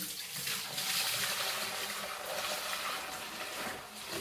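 Brine poured in a steady stream from a plastic pitcher into a 5-gallon YETI Loadout plastic bucket, splashing into the liquid already inside. The pour eases a little near the end as the pitcher empties.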